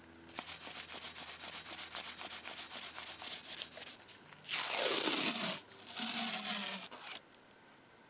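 Quick, even back-and-forth rubbing of a cloth over a steel mortise lock cover plate for about three and a half seconds. Then two loud rips of painter's masking tape being pulled off the roll, each about a second long, the first with a falling squeal.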